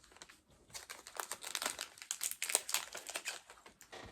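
Crinkling packaging of a mystery pin pack being handled and opened, in irregular bursts of crackle after a short pause at the start.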